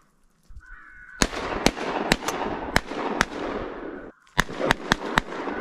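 A rapid volley of shotgun shots, about ten sharp blasts in some four seconds with a short break near the end, over a din of crows cawing.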